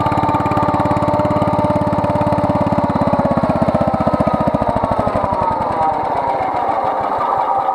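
Wheel Horse 953's Kohler K241S single-cylinder engine running steadily, then slowing from about halfway through: its firing beats spread further apart and a high whine falls in pitch as it winds down.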